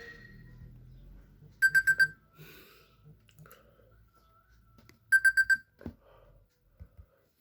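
iPhone alert tone of four rapid beeps at one high pitch, played twice about three and a half seconds apart.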